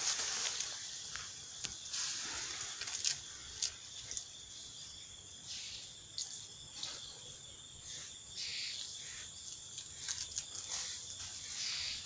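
Outdoor forest ambience: a steady high hiss of insects or wind, frequent short rustles and snaps of leaves and twigs, and one brief high bird chirp about four seconds in.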